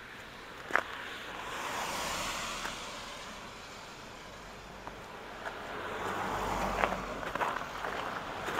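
Tyre hiss from cars passing on a wet, slushy street, swelling twice, the second time with a low rumble. On top of it are sharp, scattered crunches of footsteps on melting snow, the loudest just under a second in.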